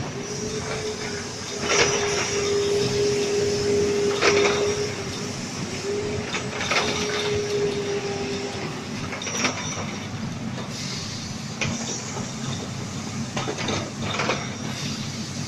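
Automatic PET bottle blow molding machine running: a steady mechanical noise with a short, sharp sound repeating about every two and a half seconds, as the machine works through its cycles. A steady mid-pitched tone sounds through about the first half, with a short break in the middle.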